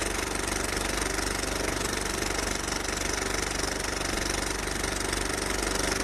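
A steady drone with a fast, even pulse, engine-like in character, used as an intro sound effect. It holds level throughout.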